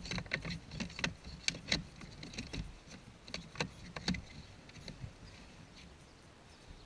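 Irregular clicks and knocks, about a dozen sharp ones in the first four seconds, growing fainter toward the end.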